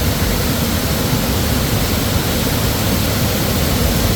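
Steady rush of a fast-flowing hill river close by, an even loud noise without breaks.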